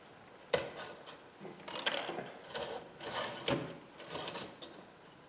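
Stiff copper motor-winding wire being handled and set onto a scale: irregular rustling and scraping, with a sharp click about half a second in and another about three and a half seconds in.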